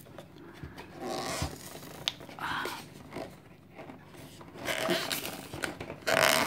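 Glued flap of a cardboard collector's box being prised and peeled open, in short, irregular tearing and scraping bursts with a few small clicks, the loudest tearing near the end.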